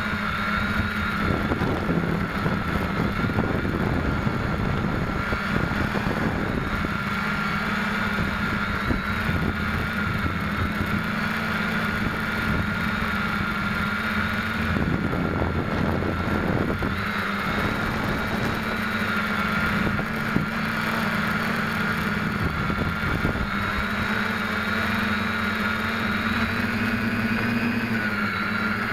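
SK450KK2 quadcopter's electric motors and propellers humming steadily, heard up close from the camera on board, with patches of rushing air now and then. The hum rises a little in pitch near the end as the craft climbs.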